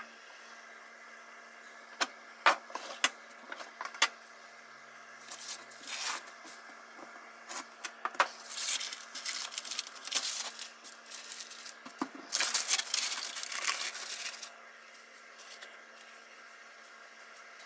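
A few sharp knocks and taps, then long bouts of scraping and rubbing as gloved hands clear peeled paint and paint-stripper sludge off a plywood workbench. The scraping stops a few seconds before the end.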